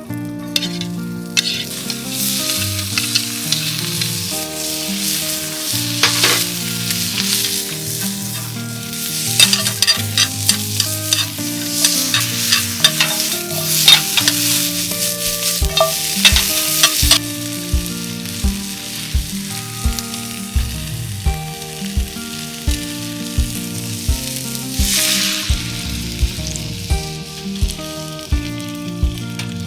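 Food sizzling in a pan over a campfire, loudest through the middle and again briefly near the end, with stirring. Background music with a steady beat plays under it.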